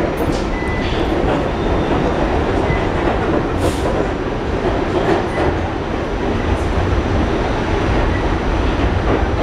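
An R46 subway car running through the tunnel, heard from inside the car: a steady, loud rumble of wheels on rail with scattered clicks. There is a brief hiss about three and a half seconds in.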